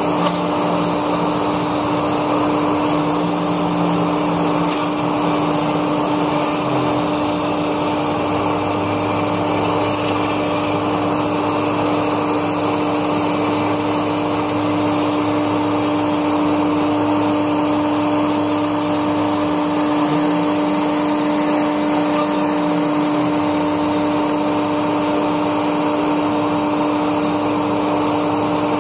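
Laguna Smartshop 2 CNC router running steadily while cutting foam: the spindle gives a constant high hum over a loud rushing noise, and lower motor tones shift every few seconds as the machine moves.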